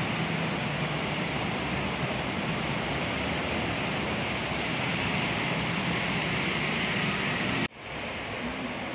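Steady rushing, splashing noise of floodwater in an underpass as motorcycles and scooters ride through it. The sound breaks off abruptly near the end and comes back a little quieter.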